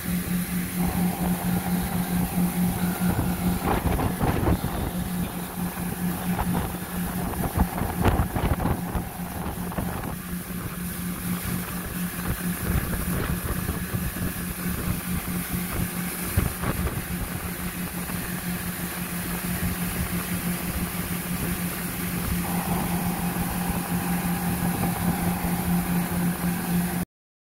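Boat motor running steadily under way, a constant low hum, with wind rumbling on the microphone.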